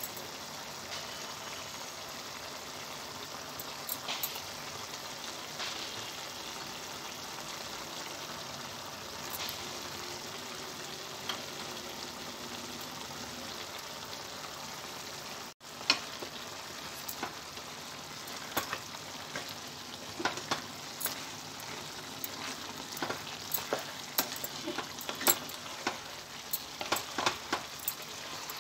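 Chicken curry cooking in a non-stick pan, sizzling and bubbling with a steady hiss. After a brief drop-out about halfway in, a wooden spatula stirs the chicken pieces, adding a run of knocks and scrapes against the pan.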